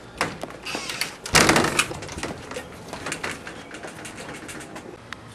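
Storm door knocked open and banging shut, the loudest bang about a second and a half in, followed by a run of light clicks and scuffs.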